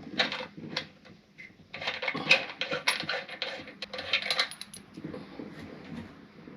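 Small metal parts clinking and clattering: a quick run of sharp clicks, busiest in the middle.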